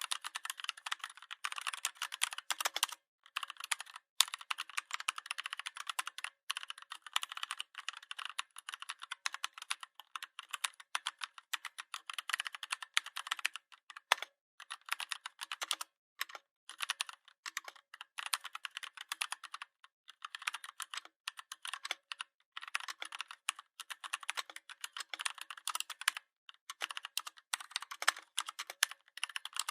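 Typing on a computer keyboard: fast runs of key clicks broken by brief pauses every few seconds.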